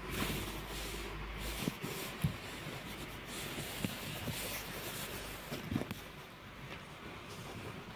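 Fabric rustling as a Chihuahua puppy tugs at and burrows into a bed blanket with its mouth. A few brief, sharper sounds stand out, scattered through the first six seconds.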